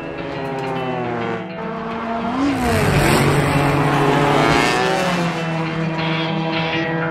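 Sport motorcycle engine revving up and down, building to its loudest about three seconds in, with tyre squeal as the rear wheel spins in a burnout.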